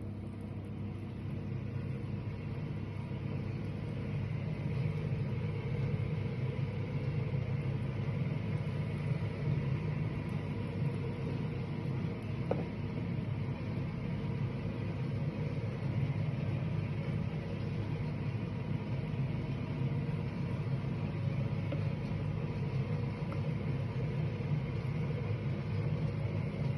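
A steady low mechanical hum, like a running motor, with a faint click about twelve seconds in.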